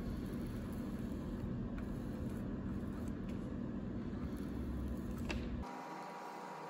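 Steady low hum over a noisy background. About five and a half seconds in it cuts abruptly to a quieter hiss with a faint higher steady tone.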